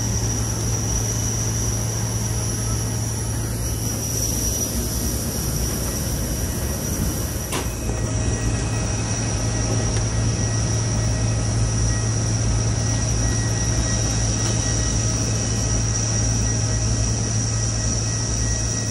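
Steady airport apron noise from parked jet aircraft and ground equipment: a low hum with a thin, high whine held over it. One faint click about seven and a half seconds in.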